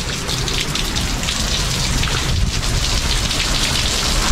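Heavy hurricane rain pouring down steadily, with a low rumble underneath.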